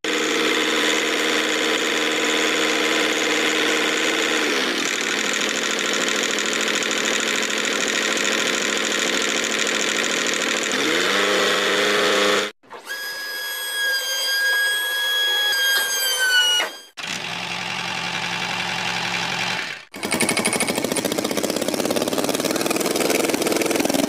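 Tractor-style engine running steadily, shifting pitch a couple of times and rising near the middle before cutting off abruptly. A higher-pitched whine follows for a few seconds and drops in pitch as it stops, then the engine sound resumes twice after short breaks.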